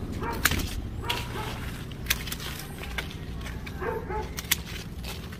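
Hand bypass pruning shears snipping branches of a custard apple tree: a handful of sharp snips, roughly a second apart.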